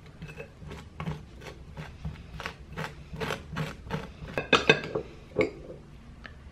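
Knife and fork scraping and mashing avocado onto toast in short strokes, about three a second. A few louder clinks of metal cutlery against the ceramic plate and bowl come about two-thirds of the way through.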